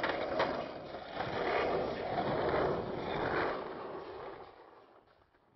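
Skateboard wheels rolling over rough asphalt, with a sharp clack of the board about half a second in; the rolling noise fades away over the last two seconds.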